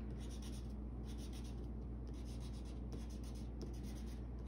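Green watercolor marker scratching on paper in quick, short repeated strokes as small leaf shapes are drawn, over a steady low hum.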